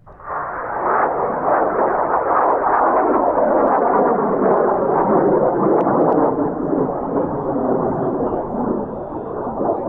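Roar of a large high-power rocket motor, the booster of a two-stage rocket, heard from a distance. It comes in suddenly, runs loud and steady for about nine seconds with a few crackles, then begins to fade near the end.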